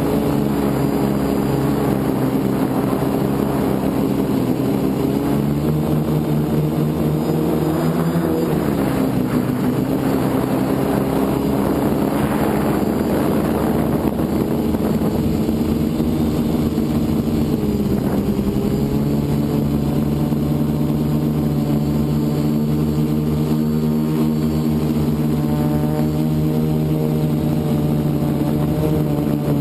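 FPV multirotor drone's motors and propellers buzzing steadily. The pitch dips and climbs back about eight seconds in and again about eighteen seconds in as the throttle changes.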